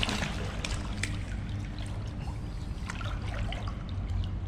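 Water trickling and splashing, with scattered short, sharp little splashes over a steady low hum.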